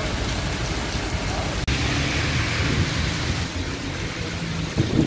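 Steady rain falling on a city road, with traffic rumbling and tyres hissing on the wet pavement. The sound cuts out for an instant a little over a second and a half in, then the rain carries on.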